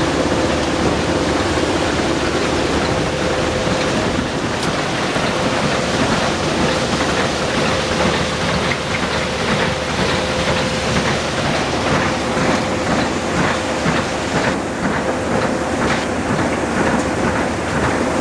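Alluvial gold concentrating equipment running: a steady rush of water and gravel slurry through the machine over a constant mechanical hum. In the second half a regular rattle comes about twice a second.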